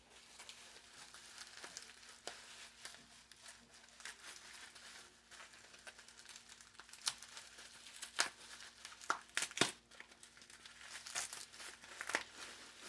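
Packaging being torn open by hand: continuous crinkling and rustling with scattered sharp crackles, and several louder snaps in the second half, as taped packing is pulled apart.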